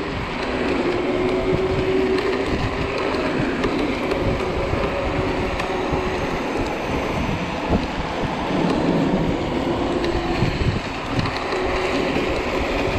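Ride noise from a Zero 10x electric scooter on city streets, picked up by a body-worn GoPro: steady rough tyre and road rumble with wind on the microphone and a faint thin whine underneath.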